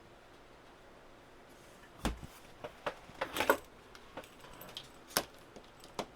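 Handling noise: a low thump about two seconds in, then a scatter of sharp clicks and knocks, most of them bunched near the middle, as the HTX-10 radio and its hand microphone are handled for a test of the microphone's up/down buttons.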